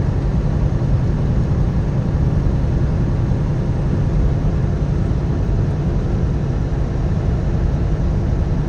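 Steady low rumble of a Kenworth T680 semi truck's engine and tyres cruising at highway speed, heard from inside the cab.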